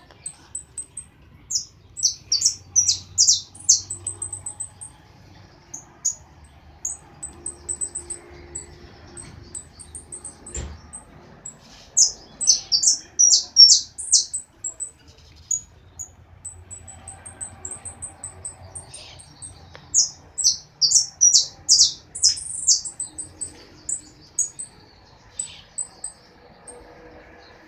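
A caged songbird singing: three loud phrases of quick, high, repeated notes, each about two seconds long, with thin high chirps in between.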